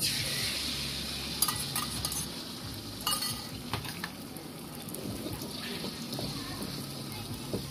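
Beaten egg and pork hitting hot oil in a wok: a sizzle that starts suddenly and slowly dies down as the omelette sets. A few sharp metal clinks of utensils against the wok come through it.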